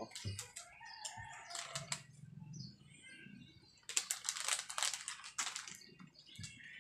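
Chickens calling in the background, with rooster crowing among them; the loudest calls come about four seconds in, and a few small-bird chirps follow near the end.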